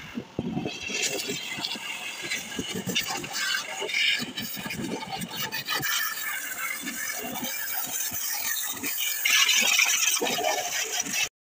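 Pressure-washer jet hissing and splattering against a van's wheel and tyre, loudest near the end, then cutting off suddenly.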